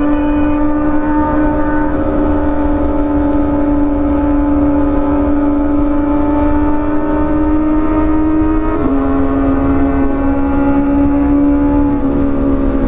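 Kawasaki ZX-25R's inline-four engine with an Arrow exhaust, heard from the rider's seat under way, holding a steady high-revving note that climbs slowly. About nine seconds in the pitch drops as it shifts up from fourth to fifth gear. Wind rumble runs underneath.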